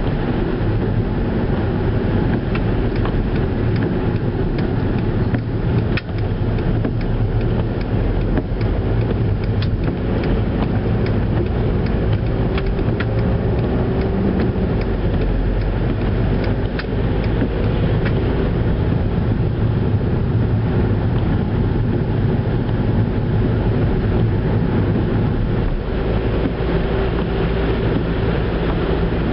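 Steady engine and road noise inside a Skoda Octavia's cabin while driving, with scattered light ticks and clicks throughout.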